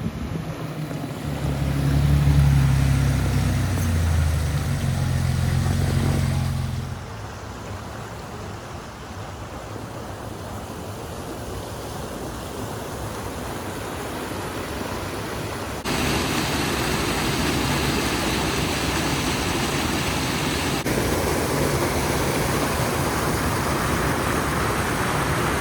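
Four-wheel-drive vehicle driving: its engine is heard running for the first seven seconds or so, then a steady rushing noise of tyres and wind takes over, stepping louder in sudden jumps.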